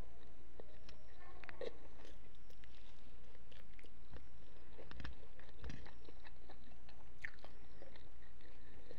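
Close-up chewing and biting of food, with scattered short crunches and clicks of the mouth, over a steady low hum.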